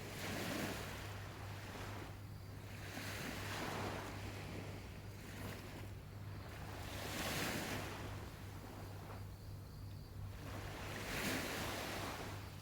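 Waves washing onto a shore, each one swelling up and falling back about every four seconds, four in all, over a steady low hum.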